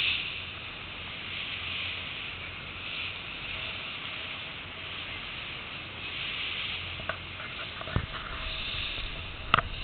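Steady rushing hiss of wind and sea water around a fishing boat moving across open water, swelling and fading every second or two. A few sharp clicks sound near the end, the loudest about half a second before it ends.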